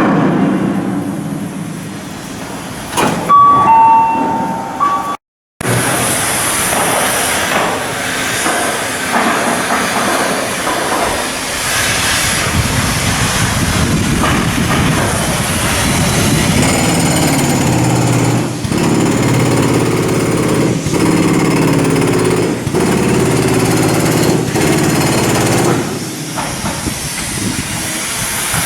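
Shipbuilding work noise: a steady mechanical din with hiss and rattling, broken by an abrupt cut about five seconds in.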